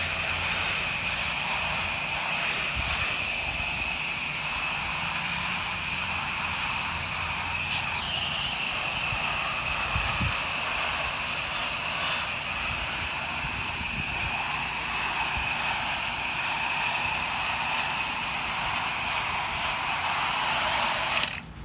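Pressure washer's low-pressure rinse spray hissing steadily as it washes soap off vinyl siding, over a steady engine hum. The spray cuts off suddenly near the end.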